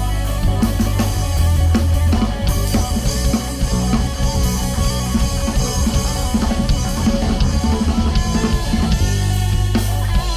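Instrumental rock jam: amplified electric guitar playing over a drum kit, loud and continuous.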